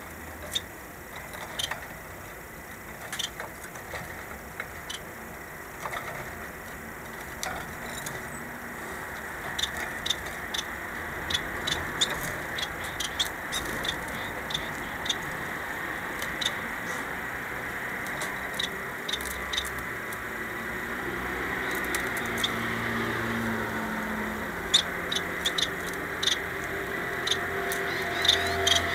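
Society finches moving about a wire cage: scattered short, sharp high ticks and chirps from the birds, over a faint steady background noise that grows louder in the second half.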